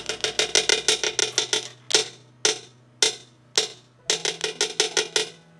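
A spoon tapped repeatedly against the rim of a plastic blender jar: a fast run of sharp taps, then four slower single taps about half a second apart, then another fast run.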